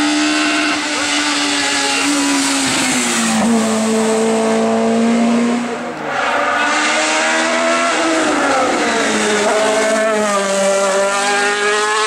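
Hill-climb race car engine at high revs as a Citroën C2 race car takes a bend: a steady high note that drops in pitch about three and a half seconds in. After a short dip about six seconds in, the engine note climbs and falls again through gear changes.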